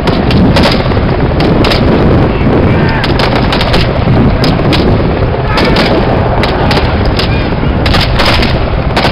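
Small arms firing blank rounds in a mock beach battle: many sharp shots at irregular intervals, some in quick runs, over a steady low rumble.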